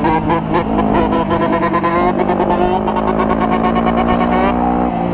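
Dirt bike engines running and revving, mixed with a hip-hop track playing underneath.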